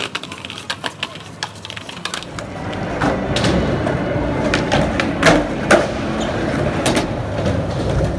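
Skateboard wheels rolling on concrete, a steady rumble that gets louder about two seconds in, with several sharp clacks of boards striking the ground.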